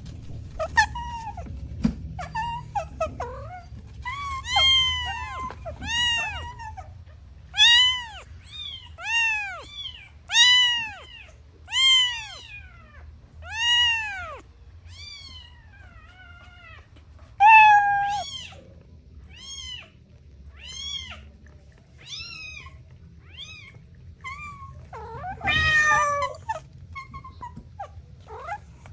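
Kitten meowing over and over in high-pitched calls, each rising then falling, about one a second. A harsher, louder cry comes near the end.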